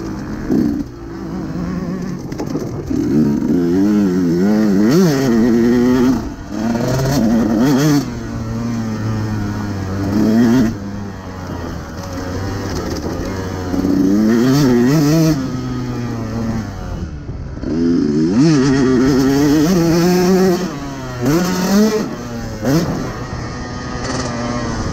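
2018 KTM 150 SX two-stroke motocross bike's engine revving hard and dropping off over and over, the pitch climbing, falling back and climbing again as the throttle is opened and shut and the gears change.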